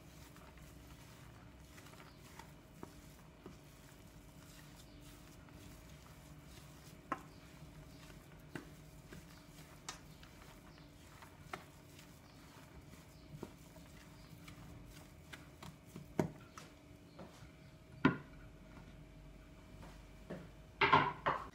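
Wooden spoon stirring a moist lentil-and-bulgur köfte mixture in a metal tray: soft scraping with scattered clicks and knocks of the spoon against the tray every second or two, a few of them sharper near the end.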